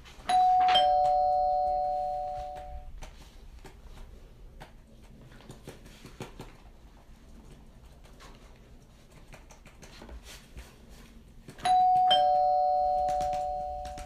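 Two-tone ding-dong doorbell chime: a higher note, then a lower one, each ringing out and fading over about two seconds. It rings twice, near the start and again about twelve seconds later.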